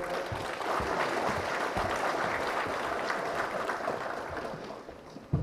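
Audience applauding steadily, dying away near the end, followed by a short low thump.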